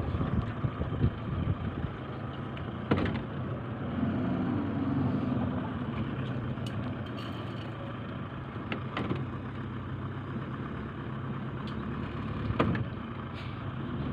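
An engine running at a steady hum, with a few sharp knocks or clunks, the clearest about three seconds in and near the end.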